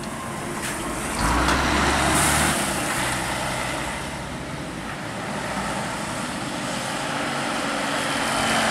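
Diesel engine of a Mercedes-Benz tour bus running as it rounds a bend and passes close, getting loud suddenly about a second in with a brief high hiss about two seconds in, then fading into the sound of a car going by.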